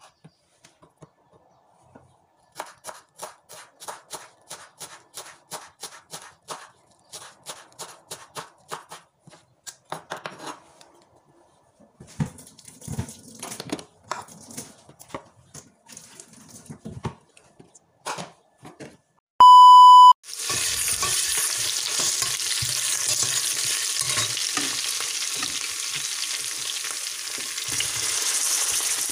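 A knife chopping fresh dill on a wooden cutting board in quick, regular strokes, followed by a few seconds of scattered knocks as the board is handled. About two-thirds through there is one short, loud beep, then diced tomatoes and onion sizzle steadily in a stainless steel pot as they fry.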